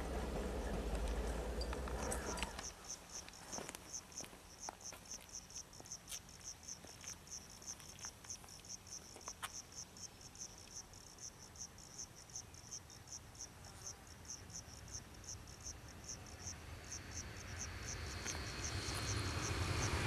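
An insect chirping in a steady, high-pitched rhythm of about four pulses a second, after a low rumble that cuts off about two and a half seconds in. Near the end the noise of an approaching electric train rises underneath.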